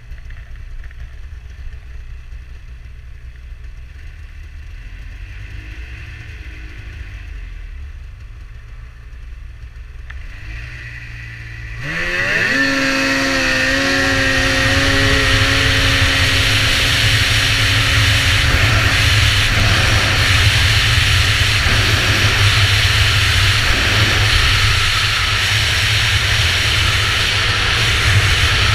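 Two-stroke snowmobile engine (an 800-850 cc class sled) running low for about the first twelve seconds, then launched at full throttle in a drag run: the engine note sweeps quickly upward and then holds high and steady at speed, over a loud rush of wind and track noise.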